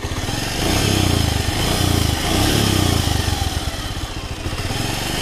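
Bajaj Pulsar 150's single-cylinder four-stroke engine running at a standstill just after being started with a newly fitted oil cooler, its level swelling and easing a couple of times.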